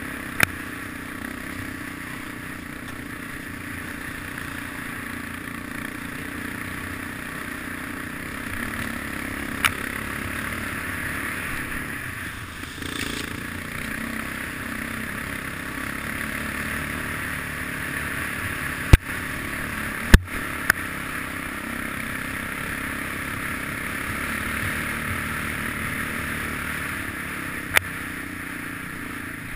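Engine of an off-road vehicle running steadily under way, heard through a helmet-mounted camera. A few sharp knocks cut through it, the two loudest close together about two-thirds of the way through.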